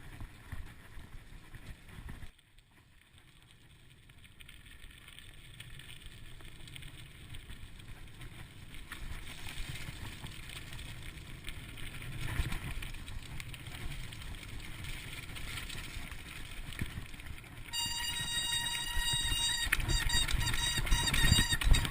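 Mountain bike riding over a forest trail: low rumble of tyres and wind on the microphone. It drops nearly silent about two seconds in, then builds again. Near the end a high, steady whine with overtones sets in over rattling jolts.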